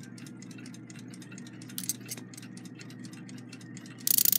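Faint, quick ticking. About four seconds in, the alarm train of a Westclox Big Ben Style 5A loud-alarm movement is set off and runs with a loud, fast rattle: the alarm is being let run to unwind its mainspring.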